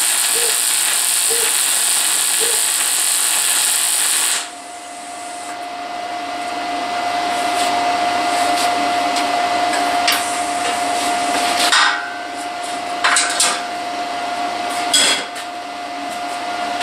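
Wire-feed (MIG) welder arc crackling and hissing steadily as it welds a steel tube frame, cutting off sharply about four seconds in. After that a quieter steady whine and hum, broken by a few short knocks and clanks.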